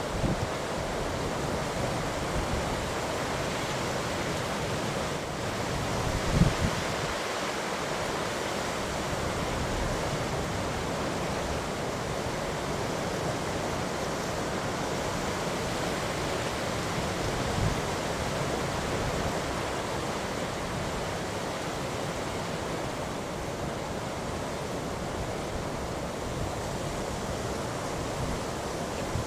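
Wind and rough sea: a steady rushing noise of wind and breaking waves, with two short, low thumps of gusts hitting the microphone, the first the loudest.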